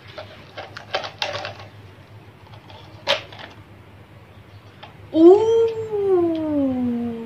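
Light clicks and taps from handling a small plastic lip-gloss case, with a sharper click about three seconds in. About five seconds in, a girl's long drawn-out "oooh" starts, rising and then sliding slowly down in pitch.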